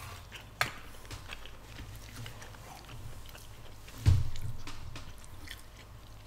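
Close-miked chewing of a mouthful of food, with small wet mouth clicks. A single low thump about four seconds in is the loudest sound.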